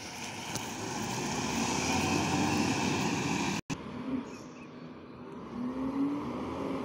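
Garbage truck's diesel engine running as it drives off, growing louder for the first three seconds. After a sudden break in the sound about halfway through, the truck is heard more faintly, with a low steady engine hum.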